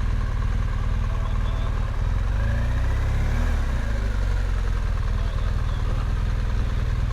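BMW GS motorcycle engine idling steadily, with a brief rise in pitch about two to three seconds in.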